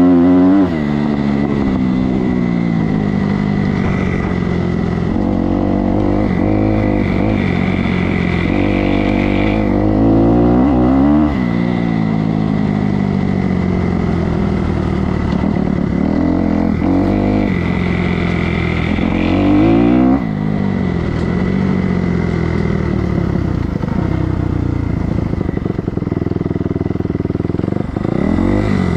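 Kawasaki KX250F motocross bike's single-cylinder four-stroke engine under way, revving up and down with the throttle. It peaks sharply at the start, about eleven seconds in and about twenty seconds in, and drops off near the end as the bike slows.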